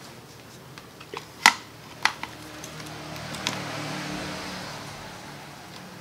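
A few sharp clicks as the power plug is pushed into a power strip, then a Panasonic refrigerator compressor starting and running with a steady low hum and a hiss. It is starting again now that its cracked PTC starter relay has been replaced with a new original part.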